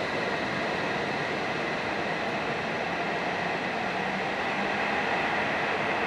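E7 series Shinkansen train pulling out past the platform, giving a steady whirring rush of motors and running gear. A constant high whine runs over it, growing a little louder near the end.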